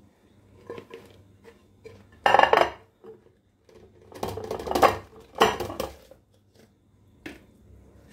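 A metal rice mould and a ceramic serving plate knocking, clattering and scraping against a stone countertop as the mould is turned over onto the plate and then lifted off the rice. The loudest clatter comes about two seconds in, with more knocking and scraping from about four to six seconds in.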